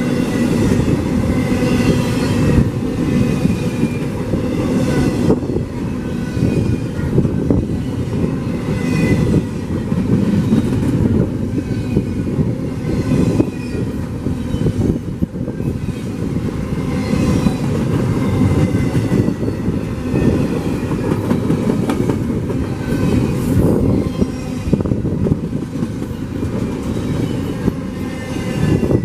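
CPKC freight train's cars rolling past, wheels clicking steadily over rail joints, with faint high-pitched wheel squeal now and then.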